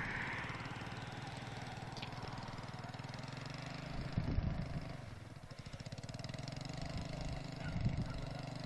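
Quad ATV engine running steadily out on the ice at a distance, a low hum with two brief louder surges about four and eight seconds in.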